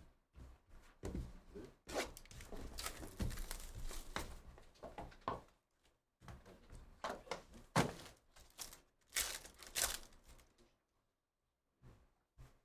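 Trading card packs being opened and handled: irregular tearing and crinkling of foil pack wrappers, with light knocks as cards and packs are set down on the table. The handling trails off near the end.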